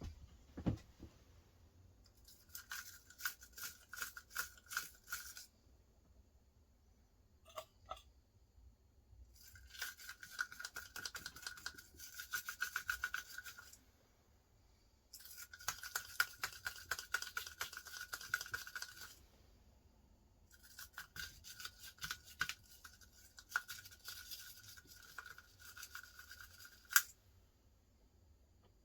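Small abrasive brush scrubbing corroded battery contacts down inside a game controller's battery compartment, in four bouts of rapid back-and-forth strokes with pauses between. There is a sharp click near the end.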